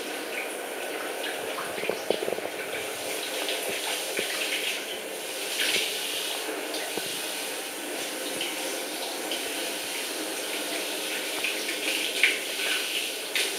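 Handheld shower head spraying a steady stream of water onto a wet cat and the shower wall, with a few brief louder moments.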